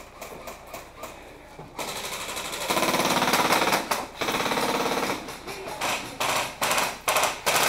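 Airsoft guns firing on full auto: a rapid mechanical rattle that builds about two seconds in into a long burst, then several short bursts near the end.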